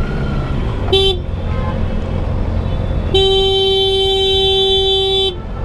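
A vehicle horn honking at a vehicle stopped in the road: a short beep about a second in, then a long steady blast of about two seconds. Under it runs the low rumble of the moving sport motorcycle.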